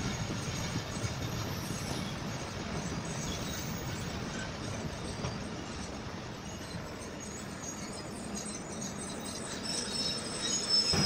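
Passenger train running slowly along the track: a steady rumble of wheels and running gear heard from alongside the train, easing a little quieter in the middle.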